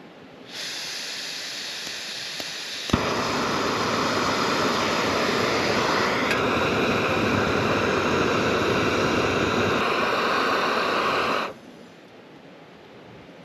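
Portable gas canister stove: gas hissing from the opened valve, a sharp igniter click about three seconds in, then the burner running with a loud, steady rushing noise for about eight seconds before it is shut off abruptly.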